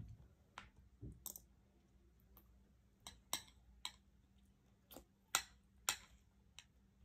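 Eating sounds: about ten short, sharp clicks at uneven intervals, the loudest a little past the middle.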